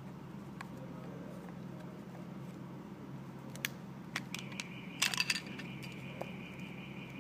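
Small hard plastic clicks and snaps as the battery cover of a handheld plastic LED fan is pried open and slid off, loudest in a quick cluster of snaps about five seconds in. A faint steady high-pitched tone sets in just before that cluster, over a steady low hum.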